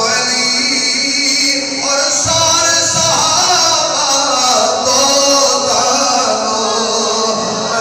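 A voice singing a slow melody with long held notes, a devotional recitation sung without any clear beat.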